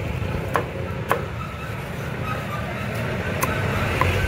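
Meat cleaver chopping roasted meat on a thick wooden chopping block: sharp knocks, three in the first second, then a pause, then two more near the end, over a steady low rumble.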